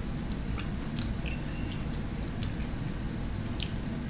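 Metal fork clinking and scraping against a plate while gathering noodles: a handful of light, separate clinks, one or two ringing briefly, over a steady low hum.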